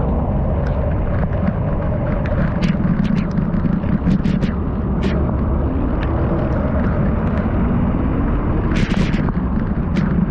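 Loud, steady wind rumble buffeting the microphone, with scattered sharp clicks and ticks throughout and a short cluster of them near the end.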